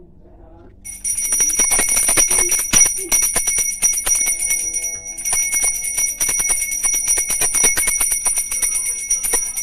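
Brass puja hand bells rung rapidly and continuously, a dense run of strikes over steady high ringing tones, starting about a second in and easing off briefly around the middle.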